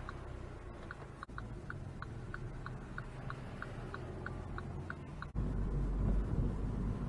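Car turn-signal indicator ticking at about three ticks a second over a low engine hum inside the MINI's cabin; about five seconds in the engine rumble rises suddenly and stays louder.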